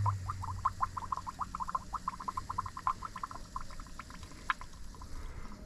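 Antifreeze gurgling and bubbling in the coolant reservoir of an electric boat motor's water-cooling loop, as the freshly started circulation pump draws the coolant in and fills the system. A rapid run of bubble blips thins out toward the end, and a low pump hum fades out about a second in.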